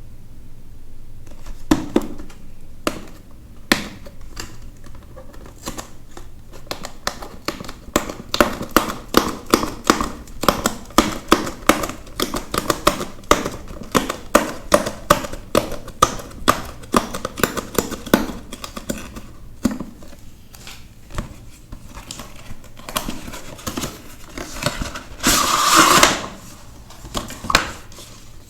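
Handling of trading cards and their packaging: a long run of quick clicks and taps, a few a second, then a short burst of rustling near the end.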